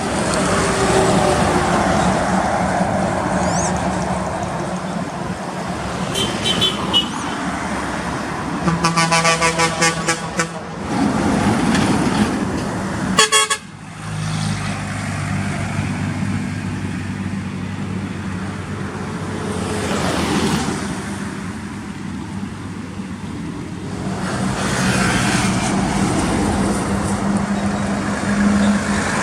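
Heavy trucks running on a highway, with a vehicle horn sounding in quick pulses about six seconds in and again from about nine to ten and a half seconds. After a sudden break a diesel truck engine drones steadily.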